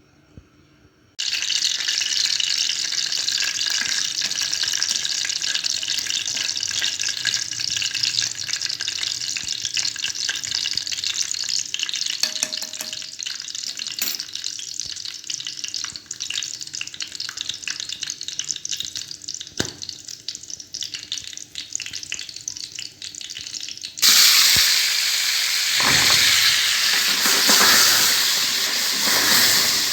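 Tomatoes frying in hot oil in a pan. A loud sizzle starts suddenly about a second in and slowly dies down, then a second, louder burst of sizzling starts abruptly near the end.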